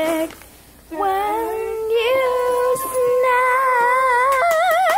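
A child singing long held notes without clear words, the tune stepping up and ending on a higher note with a wide, wobbling vibrato.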